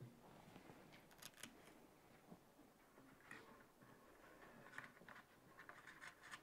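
Near silence with faint scattered clicks and rustles from a Torah scroll being handled on a table as its cover is taken off.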